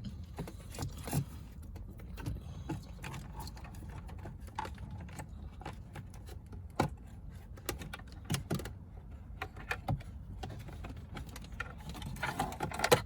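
Scattered small clicks, knocks and rustles of a wiring harness and plastic dashboard trim being handled and fed through behind the dash, over a steady low hum.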